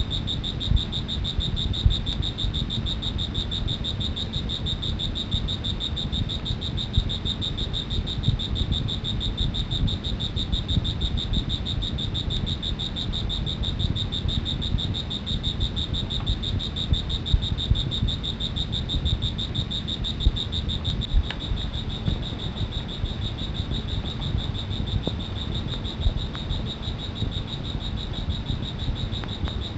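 An insect trilling without a break: a steady, high, rapidly pulsing note. A rough low rumble of background noise runs underneath it.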